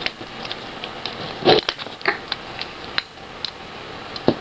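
Small plastic action figures being handled: a string of light clicks and knocks, with two louder knocks, one about a second and a half in and one near the end.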